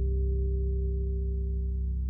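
Closing low notes of a five-string fretless electric bass (PIERRE Bass) ringing out through an echo effect, held steady and slowly fading.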